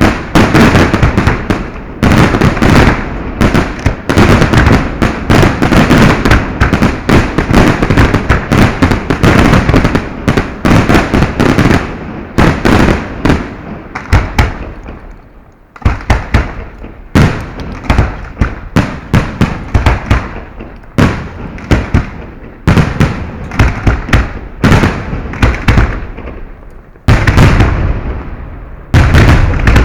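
Fireworks display heard from close to the firing site: a dense, rapid barrage of explosions, many bangs a second. About halfway through the barrage dies away, then starts again abruptly and keeps going.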